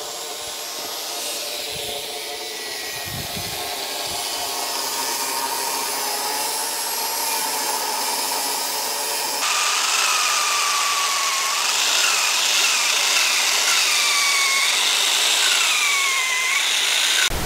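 Power saw cutting through old wooden furniture. It runs as a steady, rough noise that gets louder, and in the second half its pitch dips and recovers again and again as the blade bites.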